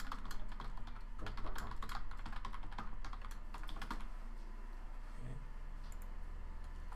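Typing on a computer keyboard: quick, irregular keystrokes that stop about four seconds in.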